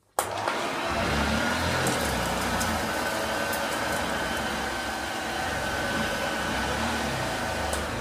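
1971 Hoover Junior 1354A upright vacuum cleaner switched on, its motor whine rising to speed just after the start and then running steadily as it is pushed over a dirt-strewn carpet. A few sharp ticks sound over the running motor.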